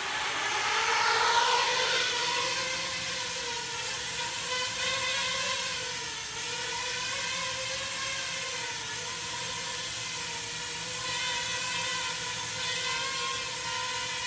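Small FPV quadcopter's motors and propellers spinning up and then hovering: a steady whine whose pitch rises over the first second or two and then wavers gently up and down with the throttle.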